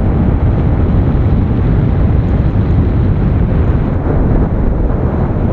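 Wind rushing and buffeting on the microphone of a moving scooter: a loud, steady low rumble with no breaks.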